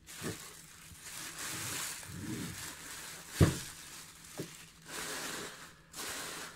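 Clear plastic bag crinkling and rustling as a large eyepiece is unwrapped by hand, with a single dull knock about three and a half seconds in.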